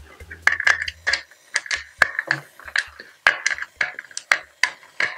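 Irregular small metallic clicks and taps of a precision screwdriver working the small screws out of a Kinect 2.0's plastic housing, with parts being handled in between.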